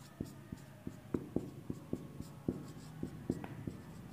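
Marker pen writing on a whiteboard: a string of short, irregular taps and scratches, about two to three a second, as letters are formed.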